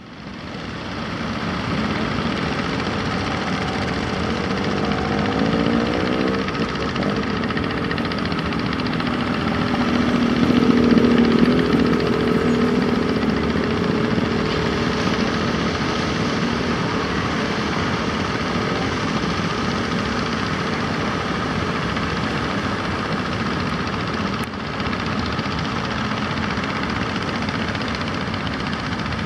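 Fishing boat engines running, a steady mechanical drone; a louder pitched engine note swells about ten seconds in.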